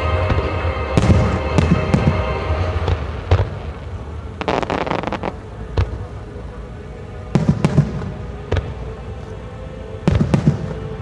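Japanese aerial firework shells bursting in a series of sharp bangs with rumbling tails, and a quick crackling volley about four to five seconds in. Music plays underneath, louder at the start.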